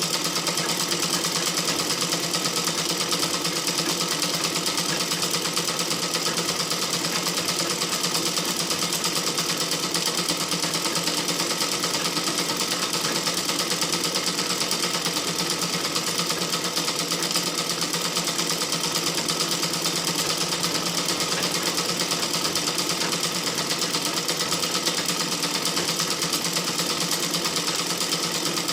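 Electric sewing machine running steadily at speed, a continuous fast rattle and hum.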